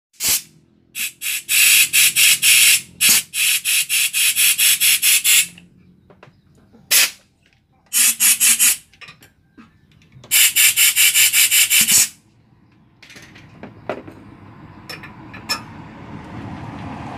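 Screwdriver turning screws out around a scooter's throttle body, in three runs of rapid rasping clicks, the longest about four seconds. Near the end a steady low rumble rises.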